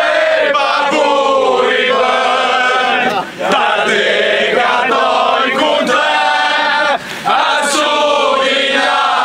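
A group of men singing a victory chant together in a huddle, loud and in unison, with short pauses for breath about three seconds in and about seven seconds in.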